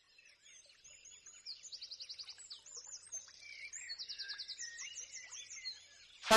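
Birds chirping faintly, with short whistled calls and quick runs of rapidly repeated notes.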